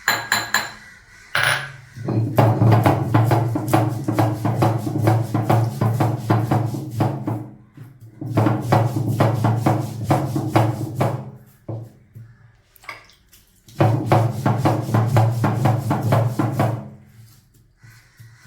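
Roasted grated coconut being ground by hand on a traditional grinding stone: the stone roller is rubbed back and forth in quick, even strokes, in three bouts with short pauses between.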